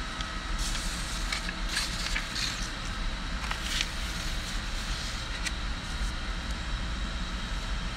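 Sheets of paper handled and slid about in a metal tool box drawer, a few faint rustles over a steady low background hum.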